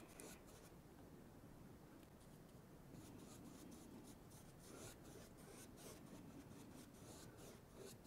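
Faint, short strokes of a paintbrush brushing and scratching across a stretched canvas, repeated irregularly.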